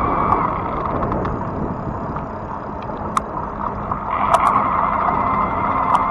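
Fat-tire electric bike riding along: rolling noise and wind, with a steady whine that fades out about half a second in and comes back about four seconds in, and a few sharp ticks.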